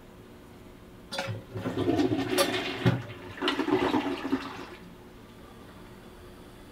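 A toilet flushing: a rush of water starts about a second in, swells in two surges and dies away near the five-second mark.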